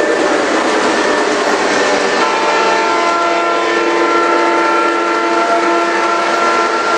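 Model freight train rolling past on three-rail track, a steady clatter of wheels and cars. From about two seconds in, the model diesel locomotive's sound system sounds a long, steady multi-note air horn chord.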